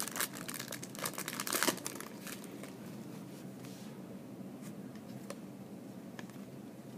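Trading-card pack wrapper crinkling and tearing as it is ripped open, for about the first two seconds, then a few faint clicks.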